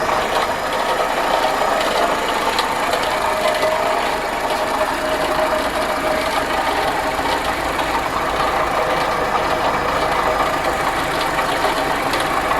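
Volkswagen Polo's TSI petrol engine idling steadily.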